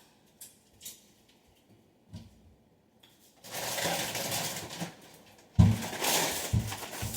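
Plastic bag of Ruffles potato chips being handled and crinkled. A few faint clicks at first, then steady crinkling from about halfway through, with a couple of heavy thumps near the end.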